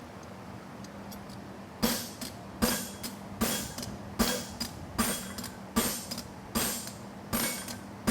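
Evenly spaced ringing hammer blows on hot steel horseshoe stock at the anvil, about one every 0.8 seconds, starting about two seconds in, as the stock is flattered down its center.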